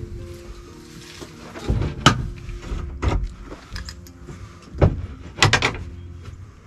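Several knocks and thumps from a 2x4 wooden frame with insulated wallboard panels being pushed and shifted into square, over steady background music.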